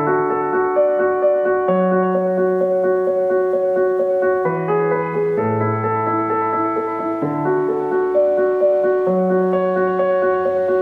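Background music: soft keyboard or piano chords over a low bass line, with the chords changing about every two seconds.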